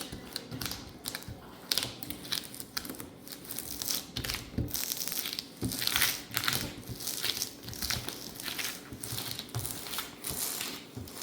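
Vinyl decal sheet and its paper backing crinkling and crackling as they are handled and peeled, in a fast, irregular run of crackles.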